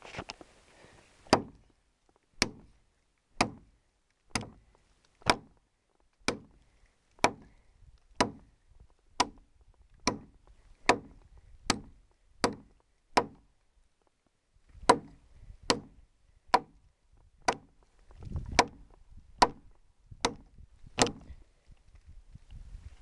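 Machete chopping into a dry, dead tree trunk: sharp blows about one a second, about twenty in all, with a short pause a little past halfway.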